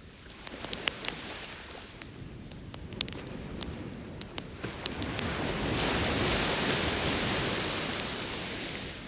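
Beach bonfire crackling with scattered sharp pops, under an ocean wave that swells up, is loudest in the middle and washes back out near the end.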